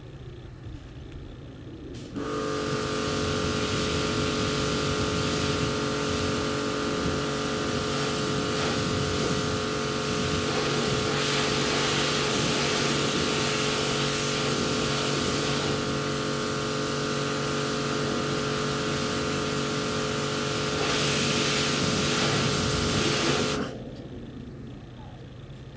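Electric pressure washer running: a steady motor-and-pump hum with the hiss of the water jet. It starts suddenly about two seconds in and cuts off a couple of seconds before the end.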